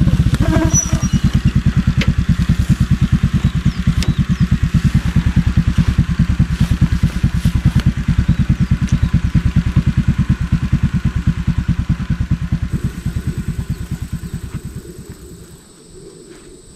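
Motorcycle engine running with a steady, rapid chugging of low firing pulses, fading away near the end. About three-quarters of the way through, a steady high insect drone, typical of crickets, comes in.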